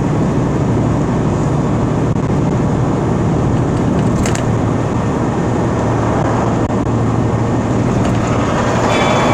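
Steady engine hum and tyre and road noise of a vehicle driving along a highway.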